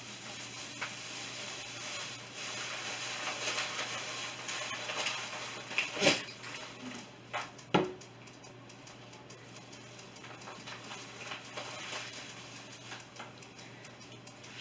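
Small handling noises of hand craft work with gumballs and glue: a soft rustling and scraping through the first half, then two sharp clicks, about six and eight seconds in.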